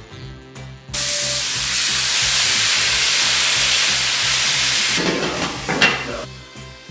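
Chicken thighs sizzling loudly in hot oil in a non-stick frying pan, starting suddenly about a second in. After about four seconds the sizzle drops as a glass lid goes onto the pan, with a short clink near the end.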